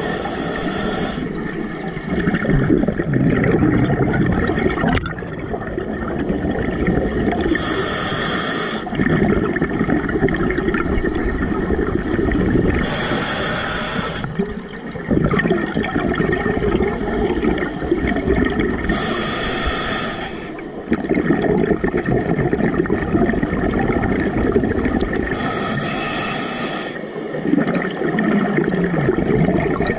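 Scuba diver breathing through a regulator underwater. There are five short hissing inhales through the demand valve, several seconds apart, and each is followed by a long rush of exhaled bubbles.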